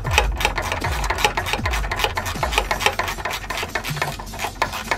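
Socket ratchet wrench clicking rapidly as it is swung back and forth on a bracket nut. Under it runs a deep, repeating bass beat that drops in pitch.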